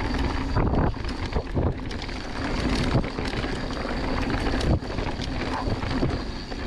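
Wind rushing over the microphone and a mountain bike's tyres rumbling down a dirt trail at speed, with irregular knocks and rattles as the bike hits bumps.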